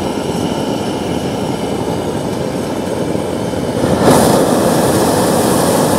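Hot air balloon's propane burner firing: a steady rushing noise that swells louder and hissier about four seconds in as a burn opens up.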